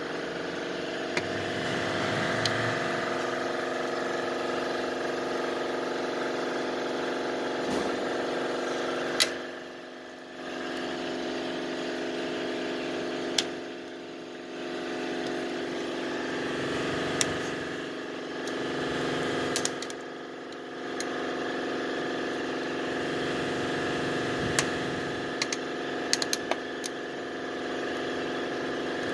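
Wood fire burning in a cut-open steel drum, with scattered sharp crackling pops, a small cluster of them near the end. Under it runs a steady mechanical hum that dips briefly a few times.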